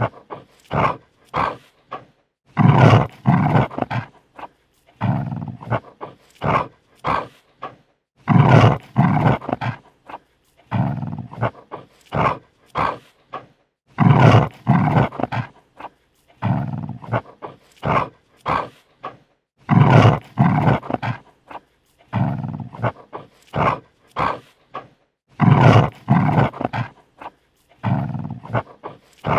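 Dog snarling and growling defensively in a run of short, harsh bursts with brief silences between, and a longer, louder snarl every few seconds.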